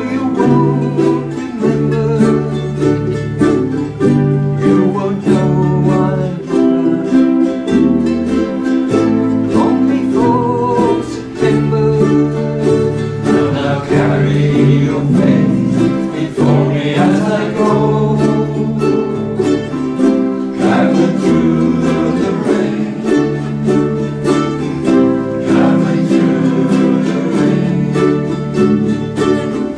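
Several ukuleles strummed together in a slow song, over held low bass notes that change every second or two.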